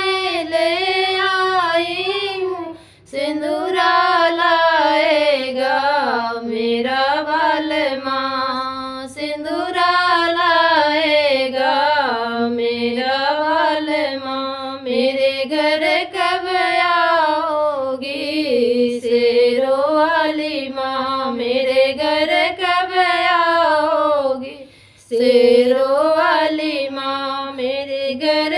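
Two women singing a Hindi devotional song to the goddess (devi bhakti geet), the melody gliding up and down in long held lines. There is a short break about three seconds in and another near the end.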